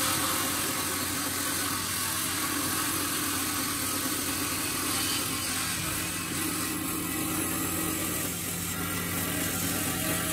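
Band saw running steadily, its blade cutting lengthwise through a wooden board.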